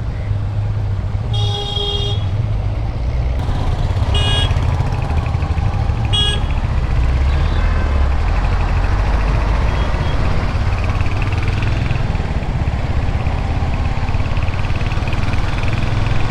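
Motorcycle ride through road traffic, with a steady low rumble of engine and road noise. A vehicle horn honks once about a second in, then gives two short toots about two seconds apart.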